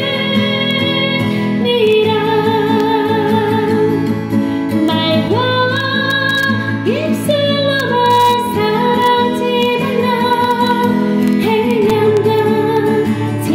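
Background music: a Korean gospel song sung by a woman over acoustic guitar accompaniment.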